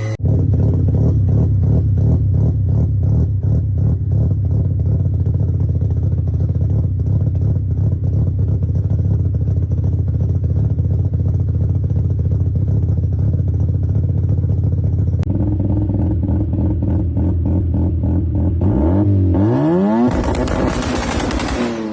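Mazda RX-7 rotary engine exhaust idling with a steady, pulsing note. About fifteen seconds in, the sound changes abruptly. Near the end the engine is blipped in quick revs, pitch rising and falling, harsher at the top.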